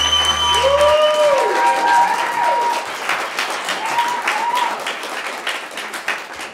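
Audience clapping and cheering, with whoops and a whistle over the applause in the first few seconds. The applause fades out toward the end.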